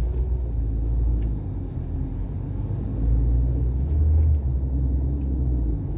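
A vehicle travelling along a road: a deep, steady drone of engine and road noise that swells slightly about three and four seconds in.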